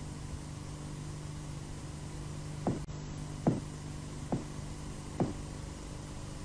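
Four dull knocks a little under a second apart, starting before the midpoint, over a steady low hum.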